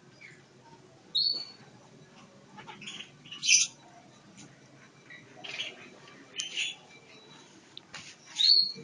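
Javan myna giving short, harsh calls and squawks, about five of them a second or two apart, the loudest about three and a half seconds in and near the end.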